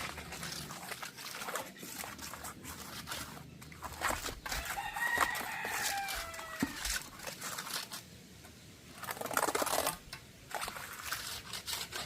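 A rooster crowing once, a long falling call about four to six seconds in, over scattered short scrapes and knocks.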